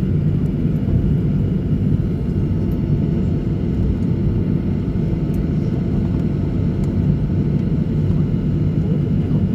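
Steady rumble of an airliner's engines heard from inside the passenger cabin as it taxis after landing.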